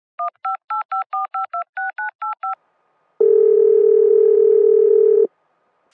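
Telephone touch-tone dialing: eleven quick two-tone beeps as a number is keyed in, then, after a short pause, a single ringing tone about two seconds long as the call rings through on the line.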